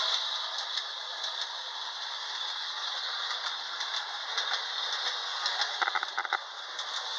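Homemade Lionel track maintenance truck, driven by the motor from a Lionel 8203, running along the toy-train track. It makes a steady high whirring hiss with scattered light clicks, and a quick run of clicks about six seconds in.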